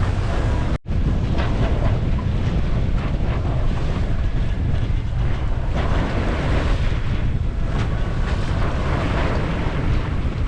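Strong wind buffeting the microphone aboard a sailboat in winds over 20 knots, with waves and water rushing past the hull. The sound drops out for an instant about a second in.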